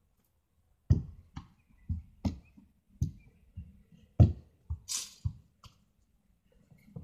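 A run of about ten dull thumps close to the microphone, roughly two a second, with a brief rushing noise about five seconds in.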